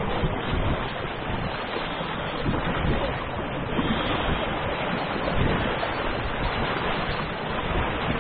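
Wind buffeting the microphone over water washing along a sailboat's hull while under way: a steady rushing noise with irregular low, gusty rumbles.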